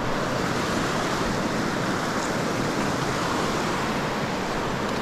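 Steady rush of the North Fork of the Virgin River flowing through the Narrows, an even wash of water noise.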